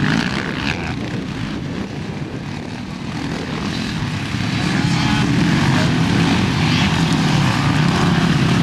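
Off-road racing motorcycles, among them a Honda CRF450 four-stroke single, revving hard as they ride past close by one after another. The engine noise eases off a couple of seconds in, then builds again as the next bikes come past.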